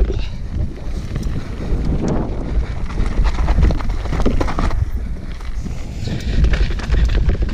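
Wind buffeting a GoPro's microphone during a fast mountain-bike descent, over mountain-bike tyres crunching on a loose dirt and gravel trail, with frequent short rattles and knocks from the bike over bumps.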